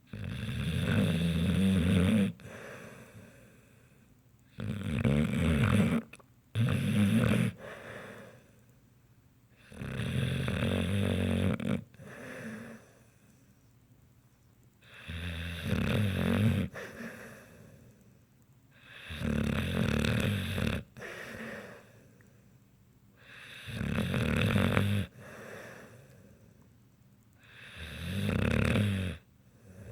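Snoring in a slow, even rhythm: a snore every four to five seconds, each lasting a second or two, with quiet breathing between them.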